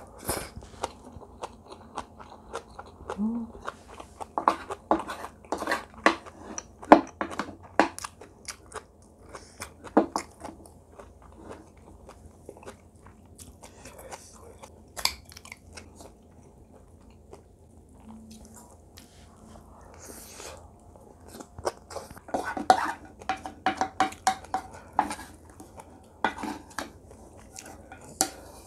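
Close-miked chewing of braised kimchi and rice: a string of irregular wet bites and crunches, with a couple of quieter stretches midway.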